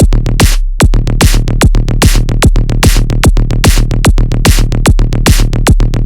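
Electronic dance music with a fast, steady beat over a deep sustained bass. The beat drops out briefly less than a second in, then comes straight back.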